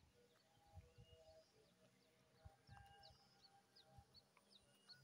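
Near silence: faint, scattered bird chirps, quick and high, thickest in the second half, over a few soft low thumps.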